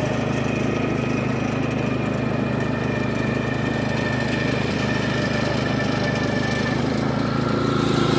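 Riding lawn mower engine running steadily while mowing; the engine note shifts and gets a little louder near the end.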